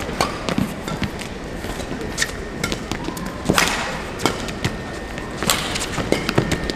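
Badminton rally: sharp cracks of rackets striking the shuttlecock every second or two, a few hits louder than the rest, with players' shoes squeaking and thudding on the court between shots.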